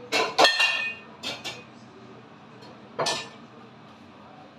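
Kitchen cookware and utensils clattering: a quick run of clinks and knocks in the first second, the loudest with a short metallic ring, then two lighter knocks and one more clink about three seconds in.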